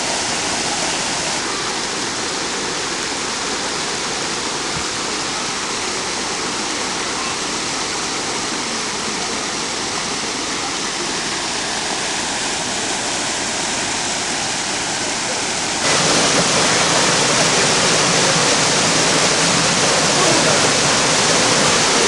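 Fast-flowing hot-spring creek rushing over a small waterfall into a pool: a steady, even rush of water. About sixteen seconds in it cuts suddenly to a louder, brighter rush, nearer the falling water.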